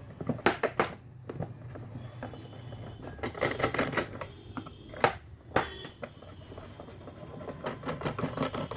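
Screwdriver working screws out of the underside of a computer UPS casing: irregular sharp clicks and knocks of the tool and casing.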